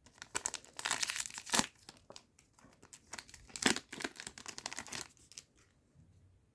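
Trading-card booster pack wrapper being torn open and crinkled by hand: a run of crackles with two sharper rips, about a second and a half in and near four seconds, dying away after about five and a half seconds.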